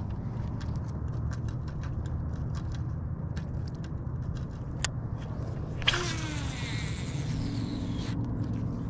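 A baitcasting reel's spool whirring as a cast goes out about six seconds in, falling in pitch for about two seconds and stopping abruptly. It plays over a steady low rumble and scattered light clicks.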